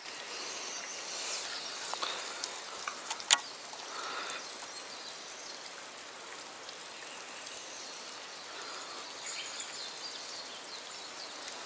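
Steady outdoor background noise at the water's edge, with insects, broken by one sharp click about three seconds in.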